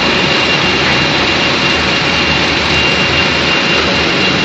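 Machinery of a puffed corn snack production line running: a loud, steady machine noise with a constant high whine.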